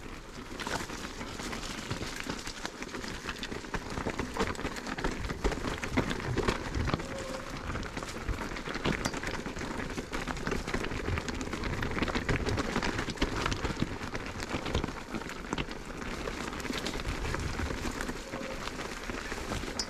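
Mountain bike rolling down a wet, rocky singletrack: a continuous rattle and crunch of tyres and frame over stones, with many small knocks.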